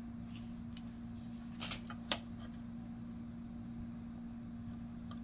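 Quiet handling of a small piece of double-sided tape: a brief crinkle and a sharp click about two seconds in as the backing is peeled off, over a steady low hum.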